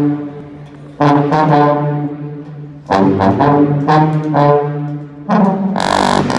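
A section of seven sousaphones playing a loud marching-band tune together. Three phrases, each hitting hard at the start and fading, then a run of short punchy blasts near the end.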